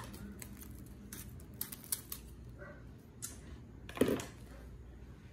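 Plastic cling wrap crinkling and crackling in irregular sharp clicks as it is handled and smoothed down, with one louder rustling knock about four seconds in.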